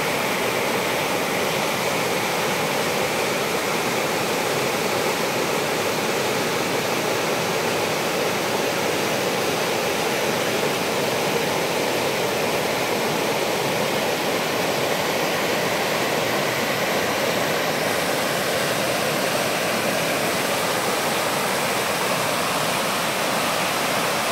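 Flowing water rushing steadily, as from a stream or small waterfall. A faint high hiss above it stops about 18 seconds in.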